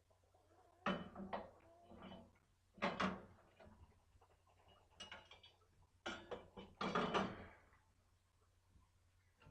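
A string of clunks and rattles from metal parts being handled and fitted, about seven short clattering knocks spread irregularly, the loudest near the middle and end.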